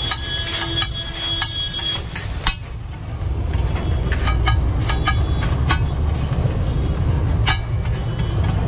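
Metal spatula clanging against a metal cooking pan as egg fried rice is stir-fried: a string of short ringing strikes, several in quick succession a few seconds in, over a steady low rumble.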